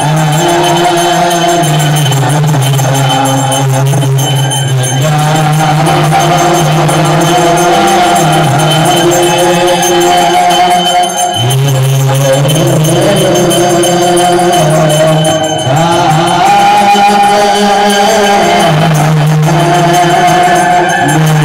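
Ethiopian Orthodox liturgical chant: low voices singing slow, long held notes in unison that step between a few pitches, with jingling percussion behind.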